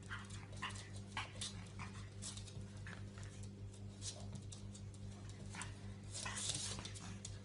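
Pug puppy making short dog noises and scuffling as it plays and tugs at a fuzzy boot, with a longer, louder noisy sound about six seconds in. A steady low hum runs underneath.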